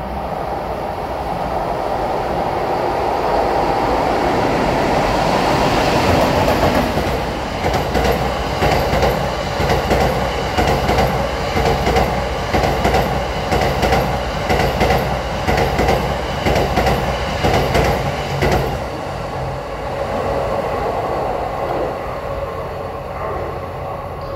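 EF81 electric locomotive hauling a rake of E26 Cassiopeia coaches passing at speed: the running rumble builds over the first several seconds, then for about eleven seconds a fast, rhythmic clickety-clack of wheels striking the rail joints, easing off near the end as the last coaches go by.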